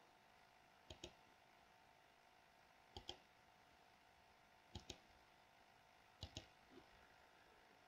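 Faint computer mouse clicks over near silence, each a quick double tick of button press and release, four times about a second and a half to two seconds apart.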